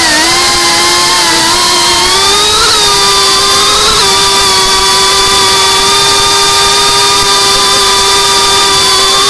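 GEPRC Cinelog35 cinewhoop's brushless motors and ducted propellers whining at a steady cruising throttle, heard close up from the onboard camera. The pitch holds nearly level, nudging up slightly about three to four seconds in.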